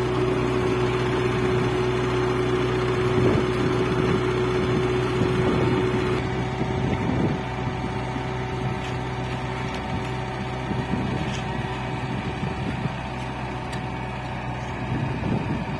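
Hanta F1740C mini asphalt finisher's engine running steadily under load while the paver lays asphalt, with a steady whine on top that stops about six seconds in.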